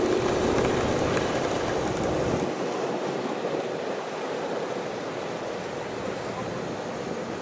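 Garden-scale model diesel train running on its track, its running noise loudest at first and fading steadily as it draws away.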